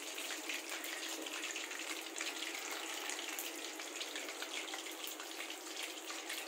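Chicken pieces deep-frying in hot oil in a wok: a steady sizzle, dotted with many small crackles and pops.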